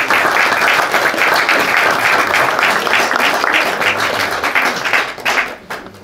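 Audience applauding: a roomful of people clapping steadily, dying away about five seconds in to a few scattered claps.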